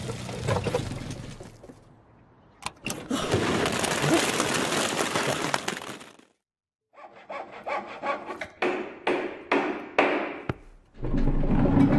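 Cartoon building-work noises: a stretch of sawing and clattering, then a brief cut to silence, then a run of separate bangs and knocks.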